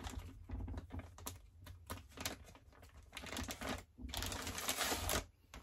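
Paper quilt-pattern packets being handled and shuffled: a run of light taps, clicks and rustles, with a longer rustle about four seconds in.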